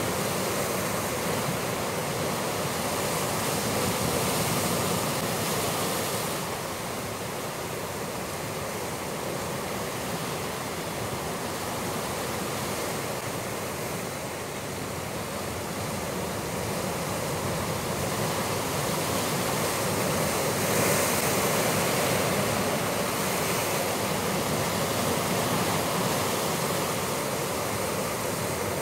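Sea surf breaking and washing against a rocky shore in a steady rush, swelling louder about four seconds in and again around twenty seconds in.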